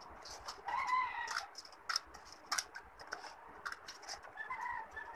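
Scissors snipping through paper, a run of short sharp snips with paper rustling. Two short pitched calls stand out, one about a second in and another near the end.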